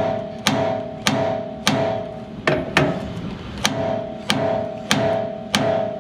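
Hammer blows on steel, about ten strikes in a steady rhythm roughly every half second, each leaving a short metallic ring. The hammer is striking a truck's steering linkage joint to shock its tapered stud loose, with the loosened nut threaded back on to protect the threads.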